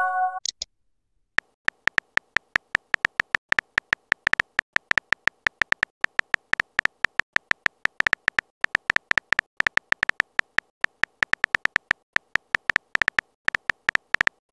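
Simulated phone-keyboard typing clicks: short, sharp ticks at an uneven pace, several a second, one per letter typed, starting about a second and a half in. At the very start the tail of a short message-sent chime dies away.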